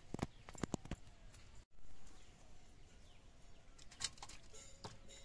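A few sharp clinks of a steel cooking pan and utensils as the pan is lifted and fish curry is scraped out onto a steel plate, with faint birdsong behind.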